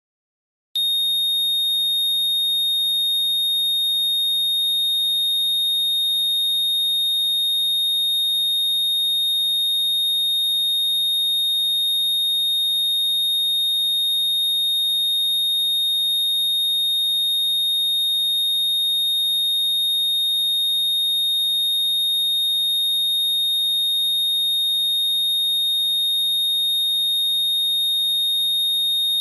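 A continuous high-pitched electronic tone that starts abruptly under a second in and holds one unchanging pitch, loud and steady, with a faint low hum beneath it.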